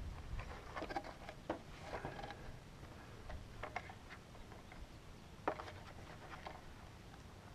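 Handling noise from a foam board model plane's battery bay: scattered light clicks, taps and rustles as hands work at the fuselage, with one sharper click about five and a half seconds in.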